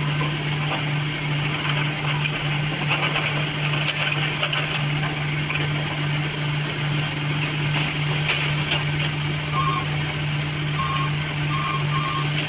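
Heavy construction machinery's engine running steadily, with a backup alarm beeping repeatedly from about ten seconds in.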